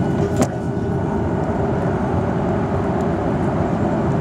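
Steady cabin noise of a Boeing 737-800 in flight, heard from a window seat beside the wing: the even roar of its CFM56 engines and the airflow, with a few faint steady hums. One short click about half a second in.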